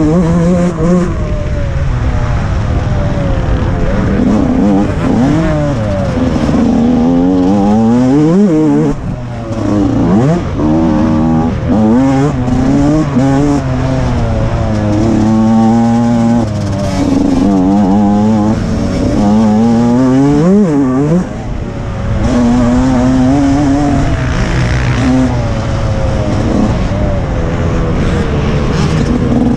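TM 125 MX two-stroke motocross engine at racing speed, revving up and dropping over and over as the rider shifts and rolls off, backing off briefly about nine and twenty-one seconds in.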